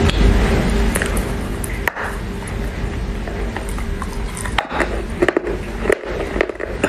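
A chunk of wet Chinese loess clay bitten off and chewed: irregular sharp crunches and clicks over a steady low hum.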